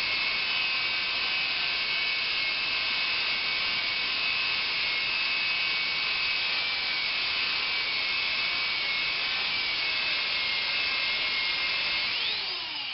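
Electric power tool motor running with a steady whine while sandpaper rubs against a spinning glass bottle. Near the end the whine rises sharply in pitch as the load comes off, and the sound begins to die away.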